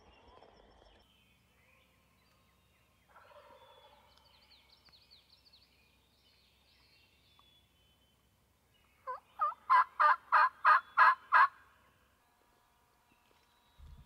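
Wild turkey tom gobbling once, about nine seconds in: a loud, rapid rattling call of about eight pulses.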